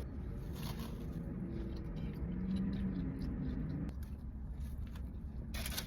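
A person quietly chewing fries, with a low closed-mouth "mmm" hum in the middle and a short burst of noise near the end.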